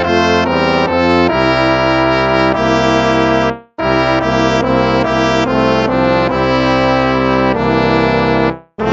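Instrumental hymn music with a brass sound, played in slow, held chords; the music breaks off briefly between phrases about four seconds in and again near the end.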